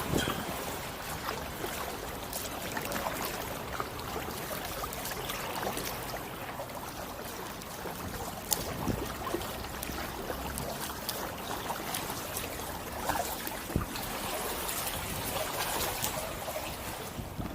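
Water trickling and splashing around an Itiwit X500 kayak as it is paddled, with a few light clicks from the paddle.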